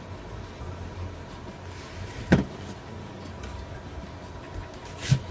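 Hands and a pencil working on a craft sign board: a sharp knock about two seconds in and another shorter one near the end, over a steady low hum.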